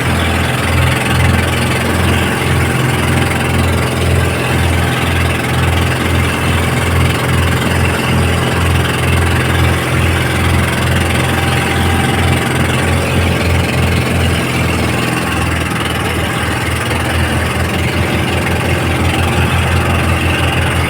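An engine running steadily with a low, throbbing drone under a steady hiss; about two-thirds of the way in, the throb becomes quicker and more distinct.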